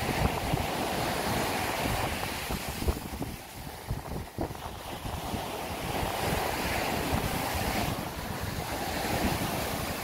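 Rough sea surf breaking and washing up a sandy beach, with wind buffeting the microphone.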